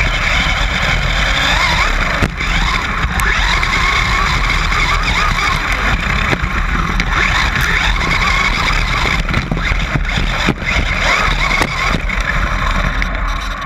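Traxxas Slash 4x4 electric RC short-course truck driving hard over dirt and gravel, heard from a camera mounted on the truck: a motor whine that rises and falls over a steady rumble of tyres and stones, with scattered sharp knocks from bumps.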